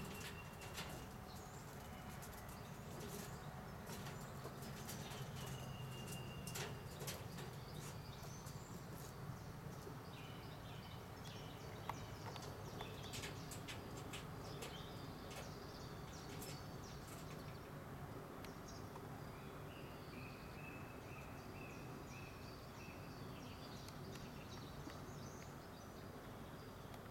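Faint outdoor ambience of small birds calling with short high chirps, including a run of repeated notes about three-quarters of the way through, over a steady low background hum with scattered faint ticks.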